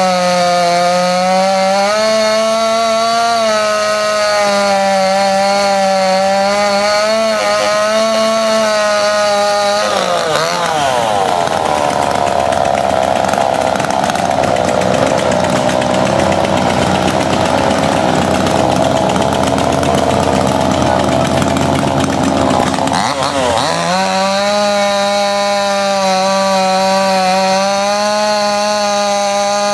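Two-stroke gas chainsaw running while carving a log. It holds a steady pitch, and about ten seconds in it turns harsher and noisier for some thirteen seconds before settling back to the steady pitch.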